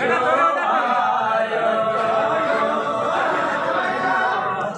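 A group of voices singing together, unaccompanied, with no drum or instrument beat.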